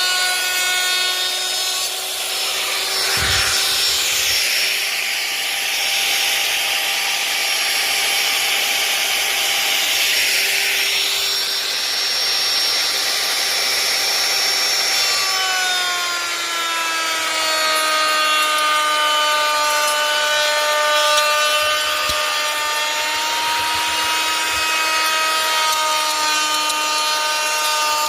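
Electric power tool running while cutting wood: a steady motor whine with a rasping cut over the first several seconds. About halfway through, the whine drops in pitch and stays lower.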